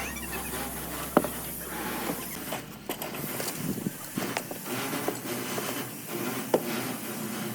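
Scattered sharp knocks and clicks of hand work on a construction site over a steady background noise, with the loudest knocks about a second in and again near the end.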